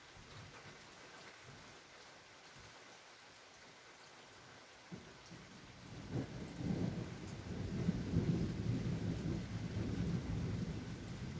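Steady light rain, then about halfway through a low rumble of thunder builds and rolls on loudly.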